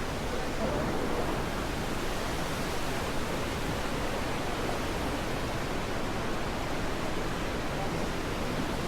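Waterfall in full spring flow from snowmelt, a steady, even rush of falling water.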